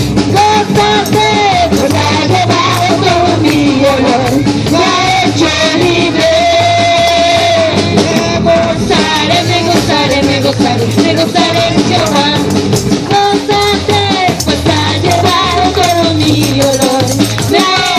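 Live praise music with a steady beat: a band plays on with a melody line carried over it, between sung lines of a worship song.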